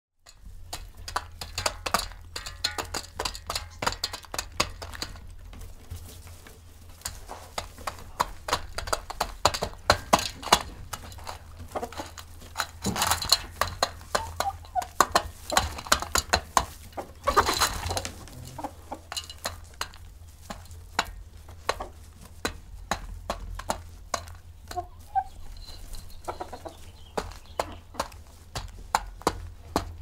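A flock of chickens feeding on grain: many quick, sharp pecking clicks throughout, with hens clucking now and then.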